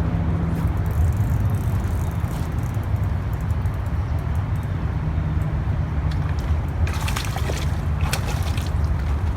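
River water trickling and sloshing at the shore over a steady low rumble. A short run of crackling clicks comes near the end.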